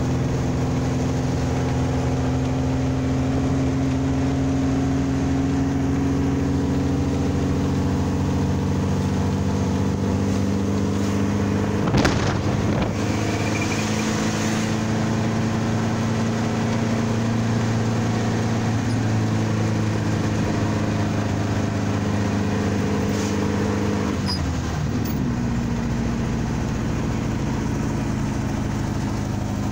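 Dune buggy engine running steadily while driving, its pitch shifting now and then, with wind and road noise. A sharp knock comes about twelve seconds in.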